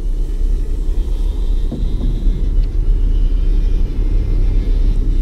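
Toy train running along wooden BRIO track, its wheels and motor making a steady low rumble close to the microphone.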